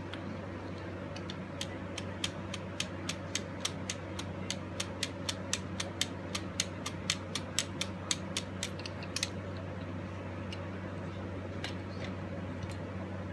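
Antique clockwork mechanism running and clicking: a run of sharp, even clicks that starts slowly, quickens to about four a second, and stops after about eight seconds, over a steady low hum.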